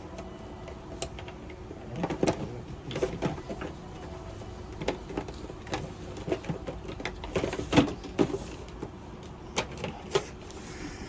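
A string of irregular clicks, knocks and rustles, loudest about three quarters of the way through, over a faint steady hum.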